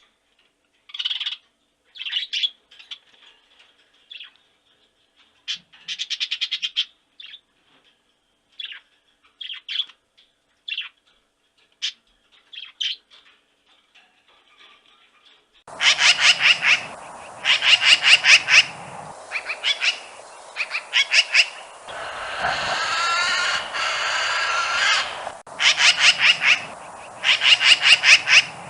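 Birds calling: scattered short squawking calls, then about two-thirds of the way in a louder stretch of rapid, repeated calls over a constant background hiss.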